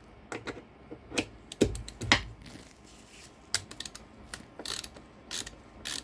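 Irregular clicks, taps and short scrapes of hand tools and hardware being handled, with a ratchet-like clicking in places.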